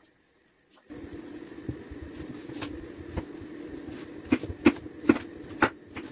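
Kitchen knife slicing an onion on a wooden cutting board: a series of sharp chops, about six, coming closer together in the second half, over a steady low rushing hum that starts about a second in.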